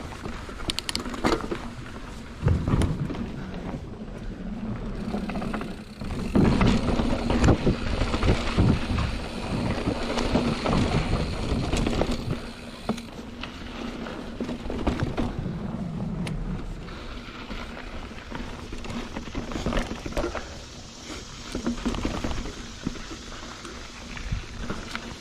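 Mountain bike ridden over a dirt trail: tyres rolling and crunching over roots and ground, the bike rattling and knocking over bumps, with wind rumbling on the camera microphone. It is busiest and loudest from about six to twelve seconds in.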